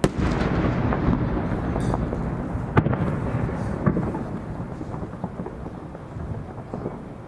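Deep boom of a 10-gou (about 30 cm) aerial firework shell bursting, followed by a long rolling echo that fades over several seconds. Two sharper cracks come about three and four seconds in.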